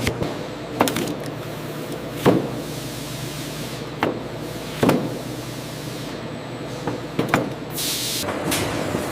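Factory machinery running steadily, with a handful of sharp clanks at irregular intervals and a short burst of hissing air about eight seconds in.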